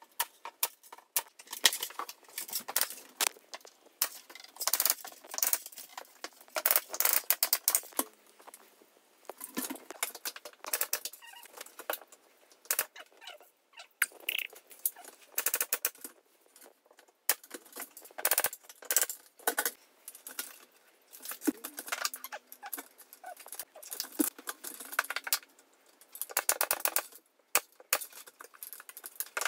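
Irregular bursts of clicking, crackling and rustling as LED strip lighting is handled and pressed into place along a ceiling cove by hand.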